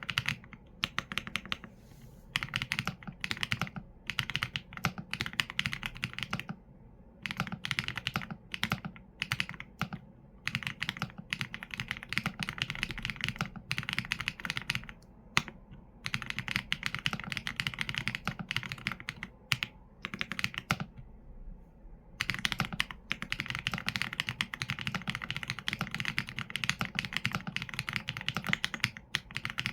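Mechanical keyboard typing on Leobog Graywood V4 linear switches with PBT keycaps: fast, continuous runs of keystrokes broken by short pauses of about a second.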